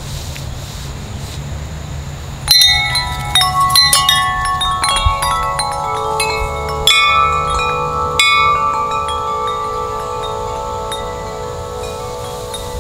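Large tubular wind chime with long metal tubes rung by the wind. A cluster of strikes comes about two and a half seconds in and two more strikes follow later, leaving several long overlapping ringing tones that slowly fade.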